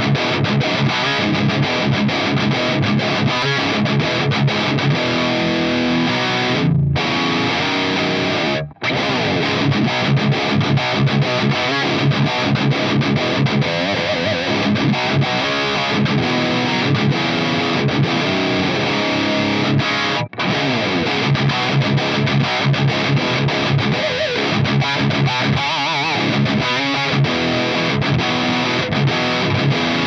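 High-gain distorted electric guitar played through a KSR Juno amp in lead mode, riffing continuously. The amp's Feel control is stepped from its flat position to the Fat setting and then the Voice setting partway through. There are brief breaks in the playing about seven, nine and twenty seconds in.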